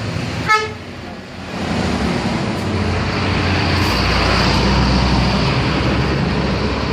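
A bus horn gives one short toot about half a second in. Then a bus's engine and road noise grow loud as it drives close past, with a deep rumble that stays to the end.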